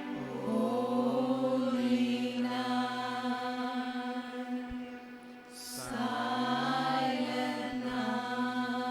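Voices singing a Christmas song in long, slowly gliding held notes over a steady low sustained tone, with a short hiss about five and a half seconds in.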